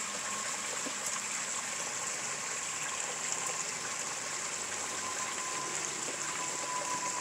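Steady running water of a garden koi pond's water feature, trickling and splashing without a break, with a thin steady tone that grows clearer near the end.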